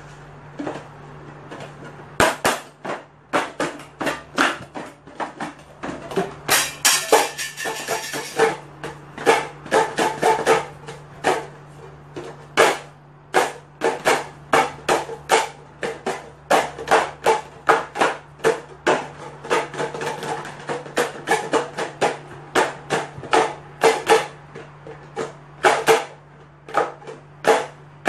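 Two tall cylindrical canisters knocked and tapped together as makeshift percussion, in a loose rhythm of a couple of strikes a second. A quick flurry of strikes comes about seven seconds in. A low steady hum runs under it.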